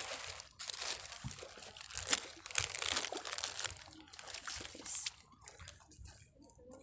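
Irregular rustling and crinkling noise from a handheld phone being moved about, with some sloshing of shallow water. It fades about five seconds in.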